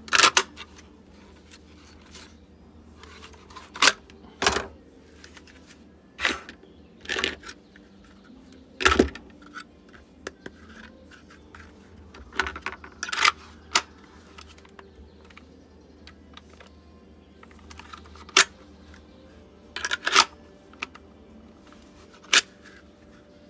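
Airsoft pistol being pushed into and drawn out of a Kydex holster: a dozen or so irregular hard plastic clicks and snaps with short scrapes as the pistol seats against and pulls past the holster's retention.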